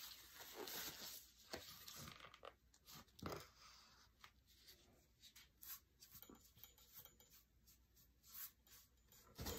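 Faint scraping and rubbing of a paintbrush worked through a thick paste of chalk paint and baking soda in a plastic tub, then brushed onto the lamp base, with scattered soft taps.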